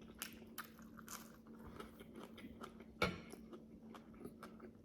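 Faint mouth sounds of a person chewing a bite of cooked egg: small wet clicks and smacks, one louder click about three seconds in, over a faint steady hum.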